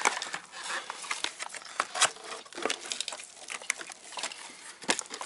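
Plastic rain tray in a VW Mk4 engine bay being pried and worked loose by hand: irregular plastic clicks, creaks and crinkling, with a few sharper snaps near the end.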